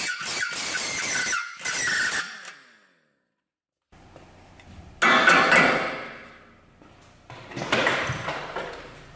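Impact wrench running in three short bursts on a seized clamp bolt that is corroded into the aluminium steering knuckle of an Audi A4 B7 front suspension, working it loose.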